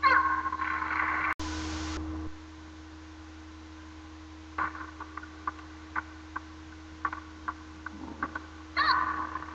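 A player's short, high shout falling in pitch, repeated near the end. Between the shouts come scattered light ticks of a table tennis ball bouncing between points, and a brief burst of hiss about a second and a half in.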